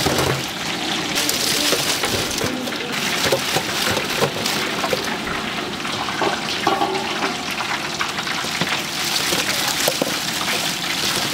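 Chicken deep-frying in hot oil in a large cauldron: a steady sizzle with constant small crackles and pops.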